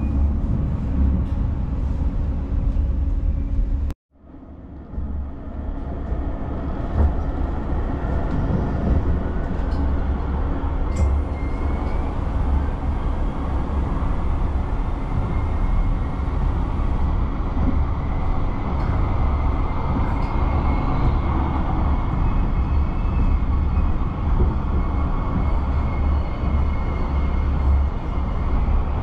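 Light rail tram running along its track, heard from inside the car: a steady low rumble with faint, thin high whines that come in a little before the middle. It opens with a few seconds of ambience at the tram stop, cut off abruptly.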